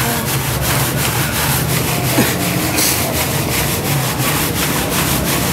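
Metal pot of Afghan sheer yakh being worked and turned by hand in a bed of crushed ice, grinding and scraping in a quick, even rhythm of about four to five strokes a second. The milk mixture inside is still freezing and not yet set.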